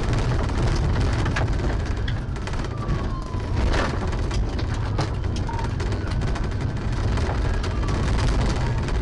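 Patrol car in pursuit on a gravel road, heard from inside the cabin: a constant heavy engine and tyre rumble, with many sharp clicks of stones striking the car. A police siren wails faintly underneath, its pitch sliding slowly down and up.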